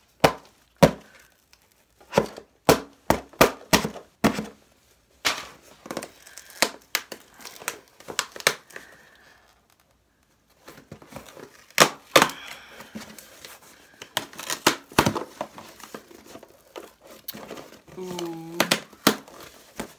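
A cardboard box and its packaging being opened and unpacked by hand: irregular crinkling, tearing and sharp crackling clicks, with a short pause about halfway.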